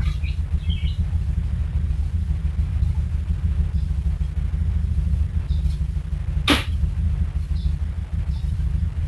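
Soft broom sweeping a tiled floor, faint over a steady low rumble, with one sharp click about six and a half seconds in.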